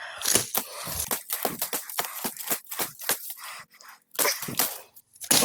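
Machete hacking at a small tree limb: a quick, irregular series of sharp chopping knocks mixed with rustling of brush and leaves.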